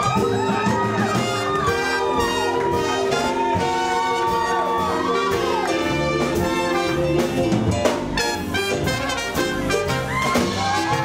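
Live jazz band playing a brassy burlesque dance number: horns swoop and slide over held chords, with an upright bass underneath. In the second half drum hits keep a steady beat.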